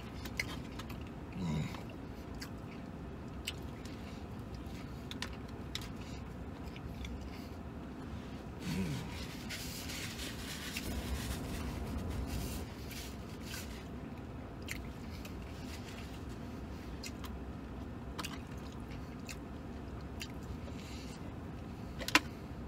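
Man chewing and biting mouthfuls of a meat sandwich, with small scattered clicks and a stretch of napkin rustling around the middle, over a steady low hum.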